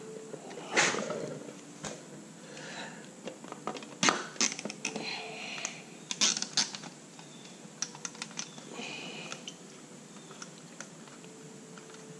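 Plastic zip ties being worked and pulled tight: short rasps and scattered irregular clicks from the ratchet and from handling.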